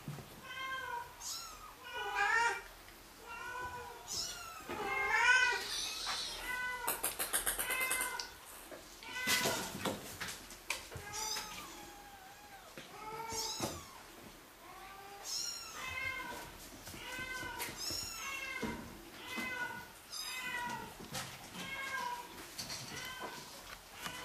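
Thai (Siamese) kittens meowing over and over, high-pitched calls that rise and fall in pitch, coming about once a second, with a short rapid rattle partway through.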